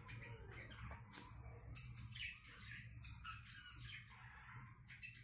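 Pet lovebirds chirping and squawking faintly, short high calls coming several times a second, over a low steady hum.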